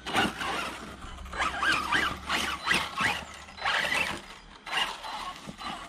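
Arrma Kraton RC truck's brushless electric motor and gear drivetrain whining in short bursts as it is throttled up a mossy slope, the pitch rising and falling with each burst of throttle.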